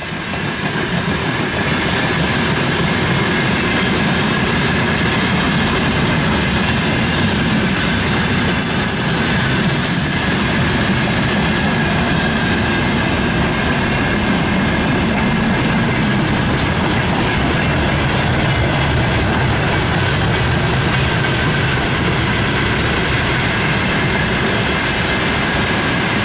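Freight train wagons (tank cars and covered hoppers) rolling steadily past, the wheels clattering over the rail joints, with a steady high-pitched wheel squeal running through it.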